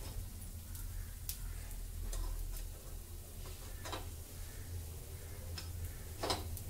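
Steel spoon clicking and scraping against a non-stick appe pan as sweet appams are flipped in their cups: a handful of separate light clicks, the loudest near the end, over the faint sizzle of the appams cooking in ghee.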